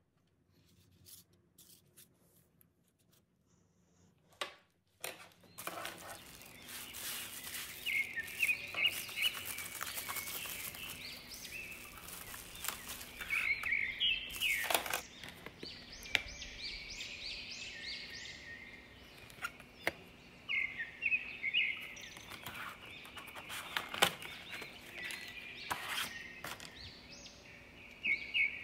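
Birds chirping in short, quick repeated trills against a steady background hiss, mixed with light clicks and a couple of sharp knocks from knives and plastic packaging being handled.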